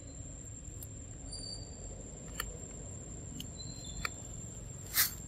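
A macaque eating small bits of food, with a few sharp crunching clicks as it chews, the loudest near the end, over a steady low rumble.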